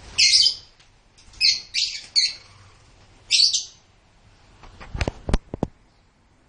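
Lovebirds giving short, shrill screeching calls, five in the first four seconds, followed about five seconds in by a quick run of sharp clicks.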